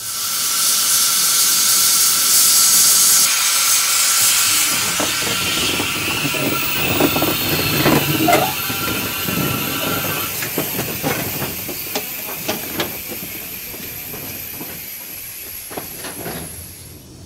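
Orenstein & Koppel 0-4-0 steam tank locomotive hissing loudly as it lets off steam. The hiss is strongest for the first few seconds, then slowly fades. Scattered metallic knocks come in the middle.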